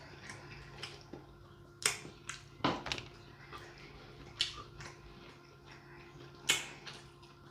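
Eating sounds from king crab with sauce: a handful of sharp, wet smacks and crunches spaced irregularly, the loudest a few seconds in and again past the middle.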